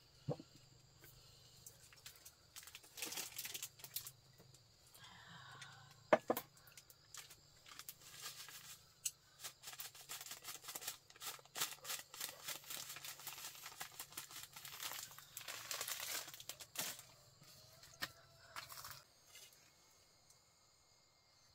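A plastic food packet being torn open and crinkled by hand: dense, irregular crackling and rustling, with a single sharp knock about six seconds in.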